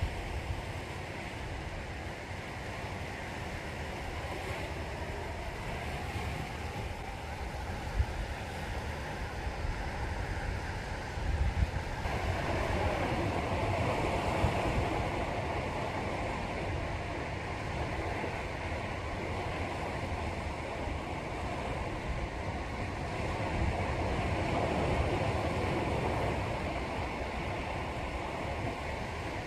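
Sea waves washing onto the shore, with wind rumbling on the microphone. A louder wave surges in about twelve seconds in and slowly fades.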